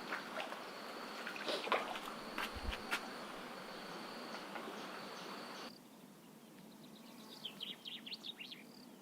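Outdoor ambience: a steady high insect drone over a hissy background with a few sharp clicks, which cuts off abruptly about five and a half seconds in. After that it is quieter, with a quick flurry of short high bird chirps.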